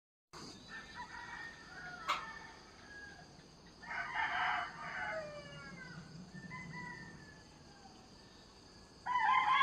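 Roosters crowing, several crows one after another with falling pitch and a louder crow near the end. A sharp click about two seconds in.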